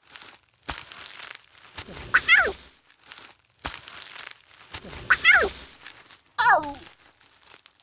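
Young lion cubs giving three short, high calls, each falling in pitch, over rustling.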